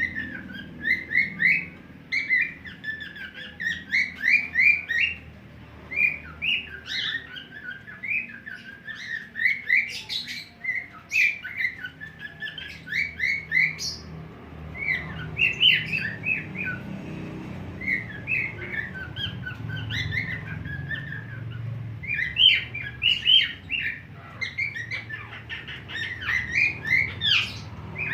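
Budgerigars chattering: fast runs of short chirps, squeaks and warbled notes, with a few brief pauses.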